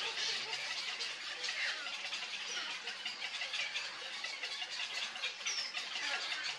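Dense chorus of many birds calling at once: overlapping short high chirps and squawks with a few brief gliding notes, steady throughout.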